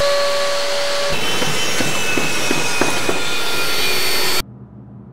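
Loud, steady rushing noise with a few faint steady tones and light clicks through it, cutting off suddenly near the end.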